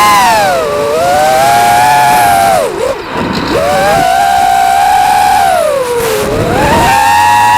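FPV racing quadcopter's brushless motors and propellers whining, the pitch rising and falling with the throttle. The pitch drops sharply about three seconds in and again around six seconds, then climbs back.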